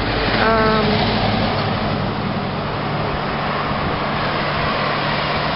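Road traffic: a motor vehicle's engine and tyres running past close by on the road, a steady rushing noise over a low engine hum.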